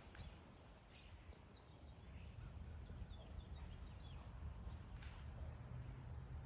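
Faint bird chirping: scattered short, high chirps, a few about a second and a half in and a cluster about three to four and a half seconds in, over a steady low rumble. A brief rustle or click about five seconds in.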